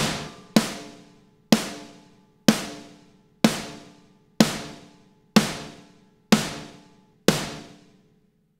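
Eight snare drum hits about one a second, each sharp crack ringing out and fading. The sound is the recorded snare layered with triggered replacement snare samples, played soloed.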